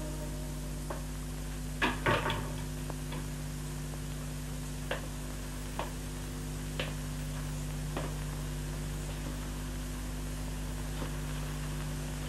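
Sharp knocks from something being handled or set down, twice about two seconds in, then a few soft footsteps about a second apart on a room floor. A steady hum of the old soundtrack runs underneath.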